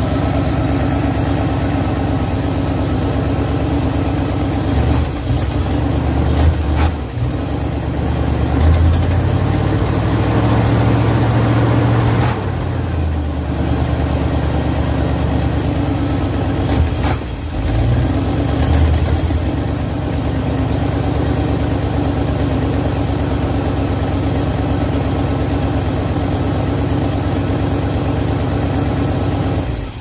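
1982 GMC pickup's carbureted engine running steadily, its revs rising and falling a few times as the throttle is worked by hand at the Edelbrock carburetor.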